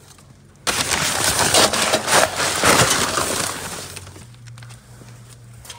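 Poultry layer pellets rattling and pouring as a scoop is dug into a paper feed sack and lifted: a dry, rushing clatter that starts suddenly about a second in and tapers off over the next three seconds.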